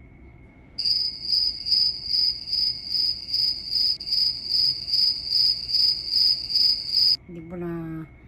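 Crickets chirping as an edited-in sound effect, an evenly pulsed high trill of about two chirps a second. It starts abruptly about a second in and cuts off suddenly near the end.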